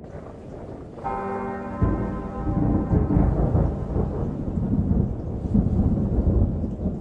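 Opening of a music track with thunderstorm effects: rain hiss and rolling thunder build up, and a deep bell is struck about a second in.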